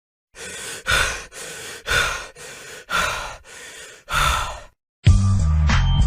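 Heavy breathing sound effect: about four loud, rasping breaths, roughly a second apart. Music with a deep bass line starts about five seconds in.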